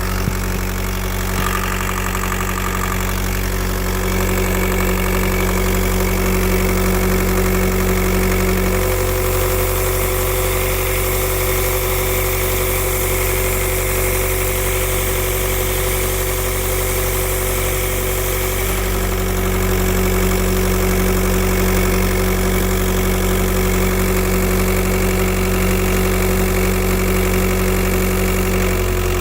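Turbocharged VW/Audi-group engine idling steadily with a hiss that the owner has not traced and takes for pressure being lost somewhere in the turbo, EGR or vacuum system. About a third of the way in a steady mid-pitched tone joins the running and a lower hum drops away; about two thirds through the tone stops and the hum returns.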